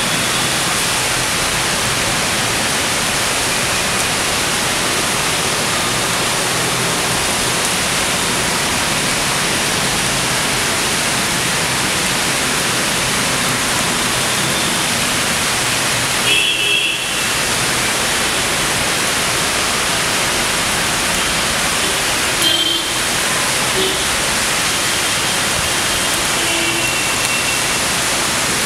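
Steady heavy rain falling, a dense even hiss, with a brief high-pitched sound twice, about halfway and two-thirds of the way through.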